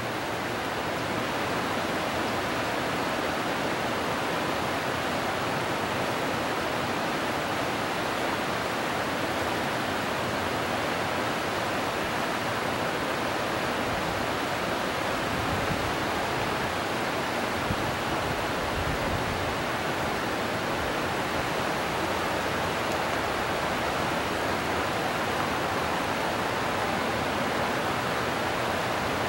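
Shallow rocky river rushing steadily over small rapids and boulders.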